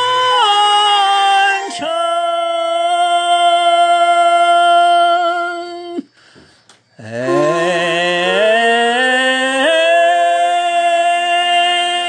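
A male singer holding long drawn-out notes on the vocalise "hei… hei…" of a Chinese folk-style song. The voice breaks off for about a second around six seconds in, then slides up into a new long note sung with vibrato.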